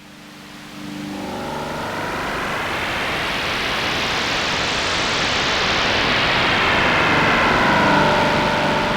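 Korg opsix FM synthesizer playing a sustained DX7 patch through its wave folder: a dense, noisy, rumbling texture with a few faint held tones. It swells in over the first couple of seconds, gets brighter toward the middle and mellows again near the end.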